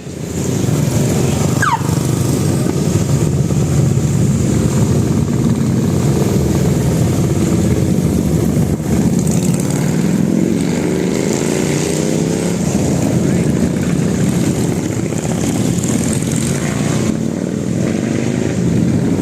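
Buses in a close convoy driving past, their engines running loud, with the engine pitch sliding as they go by.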